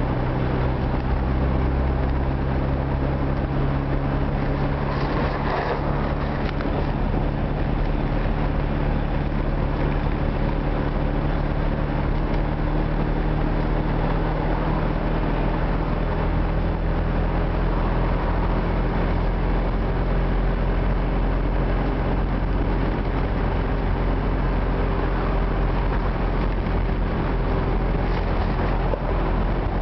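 Old Moskvich car's engine running steadily at cruising speed, heard from inside the cabin as a low drone over tyre and road noise, its pitch drifting only slightly. A brief louder rush of noise about five seconds in.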